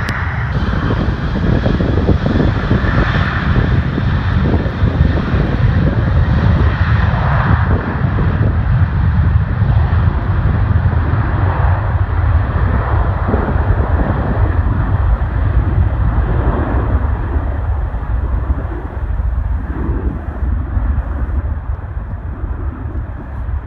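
Jet airliner engines rumbling loudly and steadily. Their higher whine and hiss slowly fade over the stretch.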